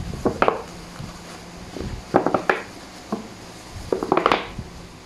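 Clear plastic food boxes and lids being wiped with a tissue and handled, giving three short bursts of plastic rubbing and clattering.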